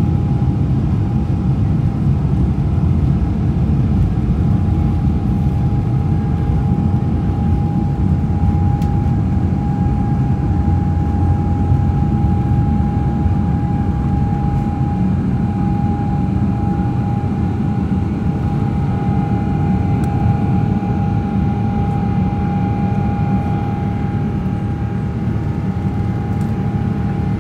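Boeing 777-300ER's GE90 engines at takeoff thrust heard from inside the cabin: a loud, steady rumble with a constant whine above it, through the end of the takeoff roll, lift-off and initial climb. The level eases slightly near the end.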